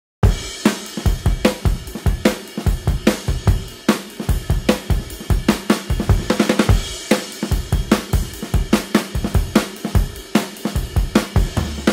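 Background music: an upbeat drum-kit beat with kick, snare, hi-hat and cymbals, kicking in suddenly just after the start.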